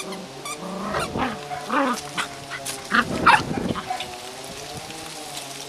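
Cocker spaniel puppies yipping and barking in play, a cluster of short, sharp yips in the middle.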